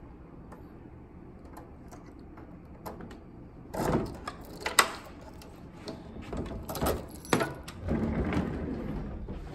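A key working in a room door's lock: after a quiet stretch, keys rattle and a series of sharp metallic clicks sound from about four seconds in, with more clicks and handling near the end.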